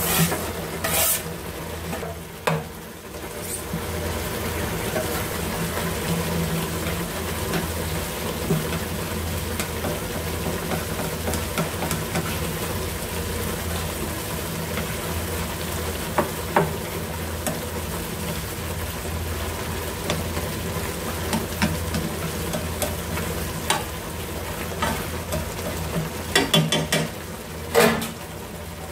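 Tomato and pig lung soup simmering in a nonstick pan with a steady sizzle and bubble as green onions are stirred in. Chopsticks knock and scrape against the pan now and then, several times close together near the end.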